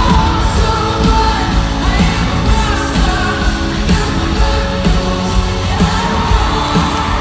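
A pop-rock song performed live: a woman singing over a full band, amplified through an arena's sound system.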